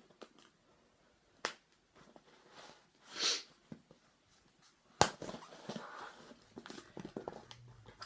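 Packaging being opened and handled by hand: a sharp click, a short rushing noise, then a loud snap about five seconds in followed by a run of crinkling and rustling.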